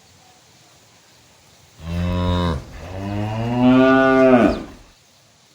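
A cow mooing twice: a short low call about two seconds in, then a longer, louder moo that ends just before the last second.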